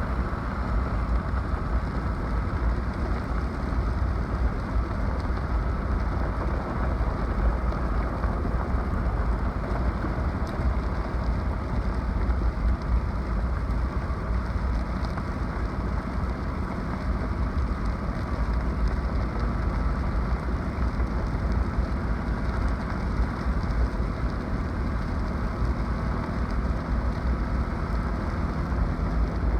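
Floodwater runoff rushing steadily, with a strong low rumble underneath.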